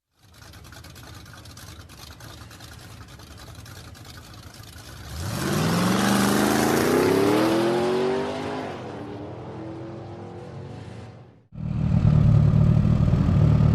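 A vehicle engine revving up, its pitch rising steeply about five seconds in, then easing off. After a brief cut there is a loud, steady low engine drone.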